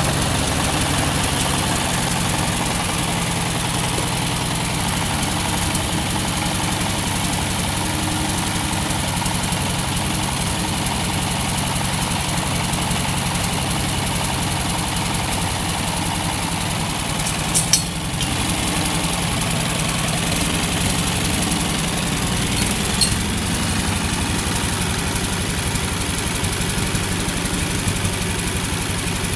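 Ford 8N tractor's four-cylinder flathead petrol engine running steadily at low speed while the tractor is manoeuvred. A couple of brief sharp clanks come partway through.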